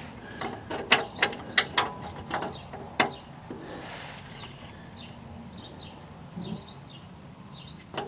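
A jack being worked up in short strokes to raise a part under the truck: a run of sharp, irregular metallic clicks for about three seconds, then fainter scattered ticks.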